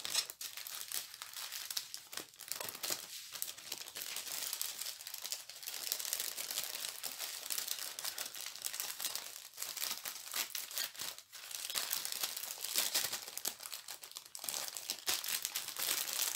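Small plastic bags of diamond-painting drills crinkling and rustling as they are handled and packed back into the kit's packet, a continuous run of crackles.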